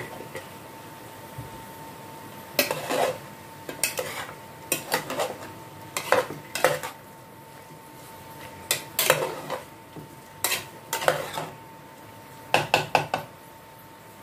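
Metal spoon stirring chunks of chicken and vegetable in a metal cooking pot, clanking and scraping against the pot in short clusters of strikes every second or two.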